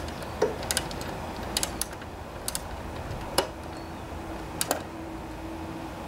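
Small ratchet wrench tightening the carburetor mounting nuts, giving sharp metallic clicks in short, irregular bursts about a second apart.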